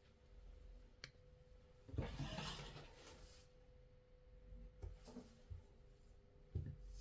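Quiet handling of dough with a metal fork on a work surface: a light click about a second in, a brushing rub lasting over a second from about two seconds in, then a few soft knocks as the fork presses into the dough. A faint steady hum runs underneath.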